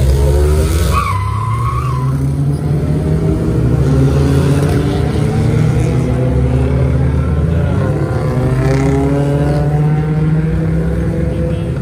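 Several car engines revving and accelerating away through an intersection, with a brief tyre squeal about a second in.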